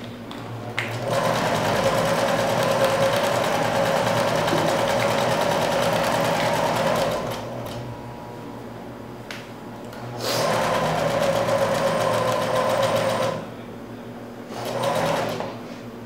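Singer electric sewing machine stitching a seam through fabric in three runs: a long run of about six seconds, a pause, a run of about three seconds, then a brief burst near the end.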